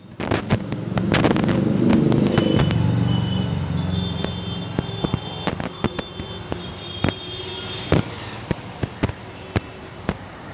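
Firecrackers and fireworks going off in an irregular series of sharp bangs. A low rumble swells about a second in and fades over the following seconds, with thin high whistling tones in between.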